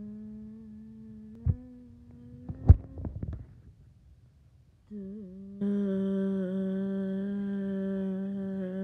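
A person humming a studio logo jingle. One long held note ends about two and a half seconds in, with two thumps, the louder one as it ends. After a short gap a second, louder note is held steadily to the end.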